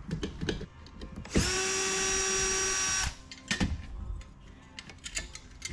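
Power drill spinning up and running steadily for about a second and a half, then stopping, with scattered knocks and clatter before and after.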